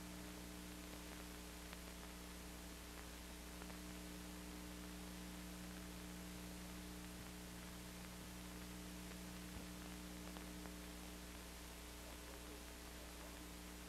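Faint, steady hum and hiss from an old film soundtrack, with no other sound.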